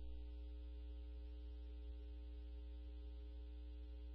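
Faint, steady electrical hum with a few thin steady tones over it: the background of a radio scanner recording while no one is transmitting.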